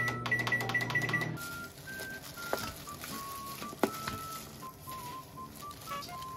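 Samsung microwave oven beeping and then running with a steady low hum for about the first second and a half. After that comes light background music, with a couple of sharp knocks as the rice tubs meet a stainless-steel bowl.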